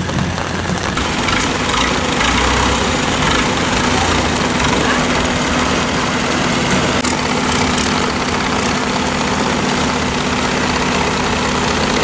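Longtail boat engine idling steadily, over a constant hiss.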